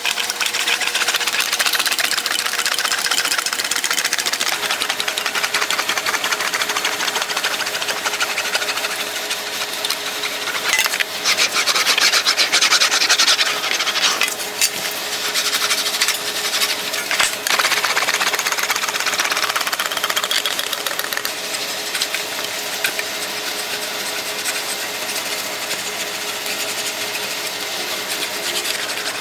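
English wheel rolling back and forth over a sheet-metal fender panel, a continuous rasping, rubbing roll with louder stretches near the middle. The panel's edge is being stretched on the wheel to curve it.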